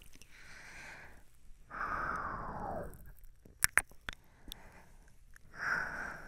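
Close-up ear-nibbling mouth sounds on a binaural microphone: soft breathy swishes about a second long that slide down in pitch, and two sharp wet clicks a little past the middle.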